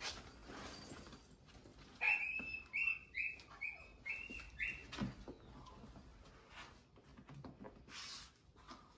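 A cat crying in a quick series of about six short, high calls starting about two seconds in, with soft rustling around them.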